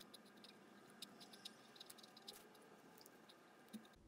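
Near silence with faint, scattered ticks of a pen writing on paper.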